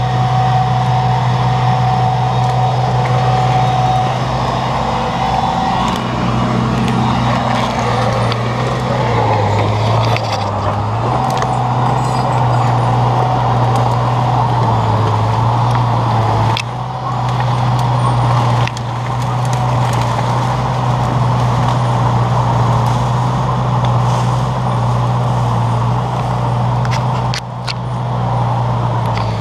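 Caterpillar bulldozer's diesel engine running steadily, its pitch sagging briefly twice as it takes load while skidding logs.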